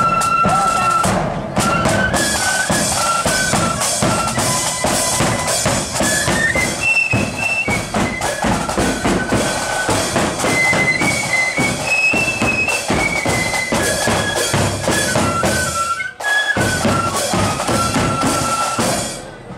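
Marching flute band playing a tune in unison on flutes, with bass drum and snare drums beating time. The music drops out briefly near the end and then carries on.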